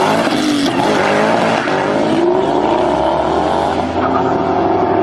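Car engine accelerating hard, its pitch climbing steadily.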